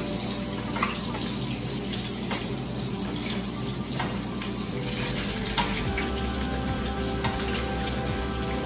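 Butter sizzling in a frying pan as hot butter is spooned over a frying egg to baste the top, with a few light clicks of the spoon against the pan.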